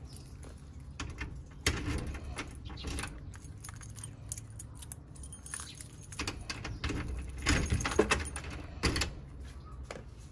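A bunch of keys jangling while one key is put into a door's cylinder lock and turned: a string of metallic clicks and rattles, louder in a cluster about three quarters of the way through.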